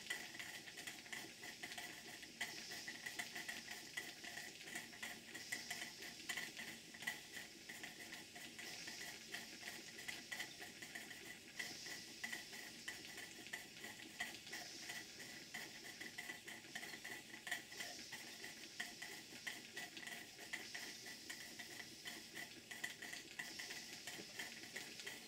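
Two small model steam engines, a hypocycloidal engine and a Vulcan beam engine, running on live steam: a faint, steady rapid ticking of the moving parts with a soft steam hiss that swells about every three seconds. They are running smoothly, with the exhaust chuff silenced by a chuff pot.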